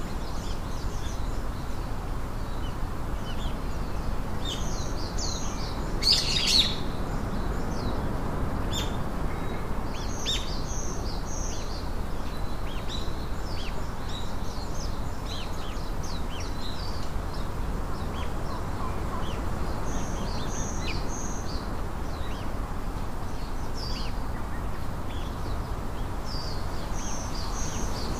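Small birds chirping and singing in short repeated phrases over a steady background hiss. A brief sharp rattle sounds about six seconds in.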